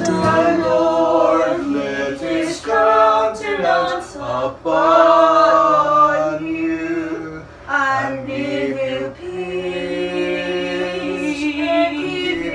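Vocal music: voices singing in layers, with long held notes.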